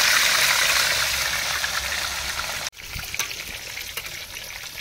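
A whole masala-coated fish sizzling in hot oil in a kadai as it goes in, the sizzle loudest at first and slowly easing. Just past halfway the sound drops out for an instant, then quieter sizzling with small pops and crackles carries on.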